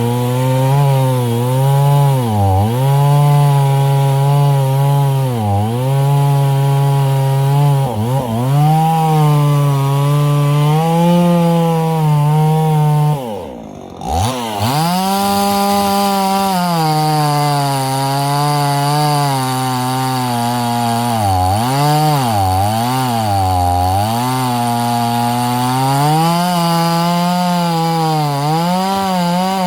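Husqvarna 50 Rancher two-stroke chainsaw running at high revs, its engine speed dipping and picking back up again and again. About halfway through it briefly drops away almost to nothing, then comes back up.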